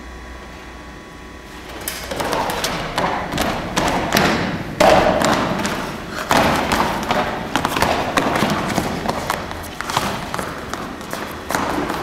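Several dancers' feet thudding on a stage floor as they run and hop across it, a quick, irregular patter of footfalls that starts about two seconds in.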